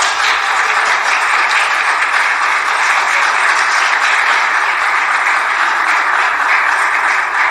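Audience applauding: steady, sustained clapping from a room of seated people.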